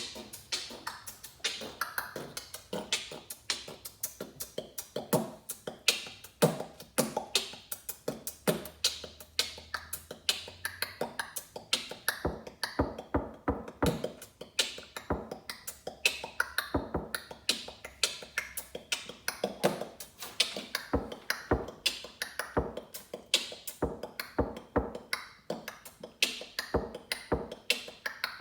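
A rhythmic beat built from sniffs, scoffs and coughs, with sharp percussive hits repeating several times a second.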